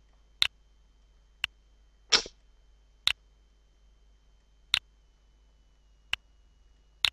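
Computer mouse clicking about six times, a second or more apart, while blocks are dragged and dropped. About two seconds in there is one short noisy burst, the loudest sound.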